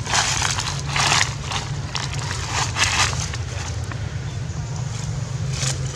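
Dry fallen leaves crunching under footsteps in irregular bursts, several in the first three seconds and one more near the end, over a low steady rumble.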